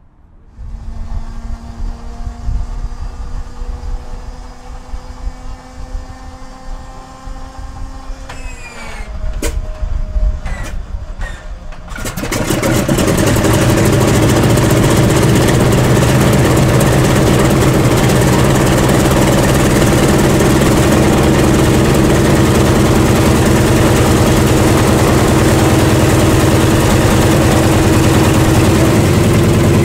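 Cold start of a Lisunov Li-2's ASh-62IR nine-cylinder radial engine. A starter whine rises slowly for about eight seconds, then drops as it engages the engine. A few pops follow as cylinders begin to fire, and about twelve seconds in the engine catches and runs loud and steady.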